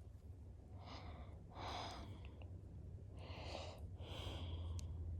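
A person breathing close to the microphone: four short, faint breaths with a low steady hum underneath.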